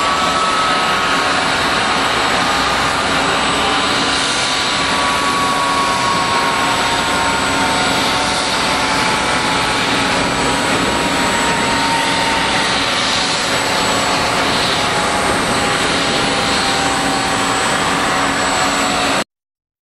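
Jet-turbine noise from a Boeing 767-300 airliner at the gate: a loud, steady rush with a thin whine falling slowly in pitch. It cuts off suddenly near the end.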